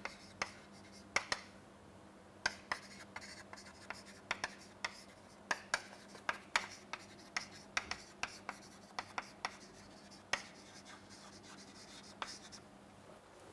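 Chalk writing on a chalkboard: irregular sharp taps and short scratches as letters are written, with brief pauses between words.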